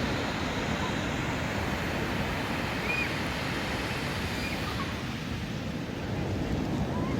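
Ocean surf washing steadily onto a beach, with wind buffeting the microphone. A few faint short high calls sound in the background.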